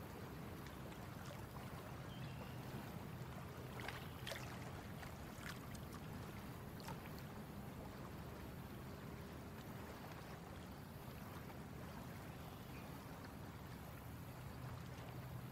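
Faint water ambience around a small boat on a lake: a low steady rumble of water against the hull, with a few light clicks about four to seven seconds in.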